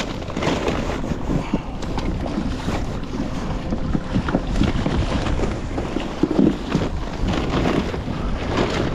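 Wind buffeting the microphone over choppy sea water sloshing around a kayak.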